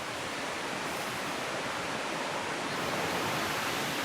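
Steady rushing of running water from a nearby mountain stream and small waterfall.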